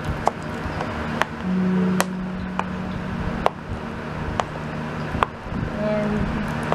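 Light, sharp clicks and taps, about one a second, as fingers handle small die-cast toy planes and press on a plastic tray cover, over a steady low hum.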